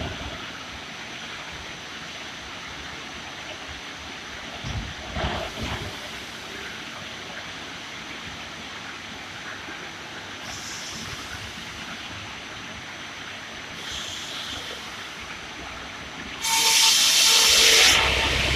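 PROSAW 460 cant-making sawmill machine running steadily, with a few knocks about five seconds in. Near the end comes a loud, high-pitched hissing burst lasting about a second and a half.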